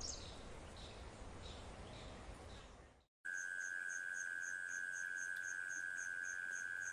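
Night crickets: a steady high trill with a fainter chirping above it, about four chirps a second. It starts after a brief silence about three seconds in, before which there is only faint hiss.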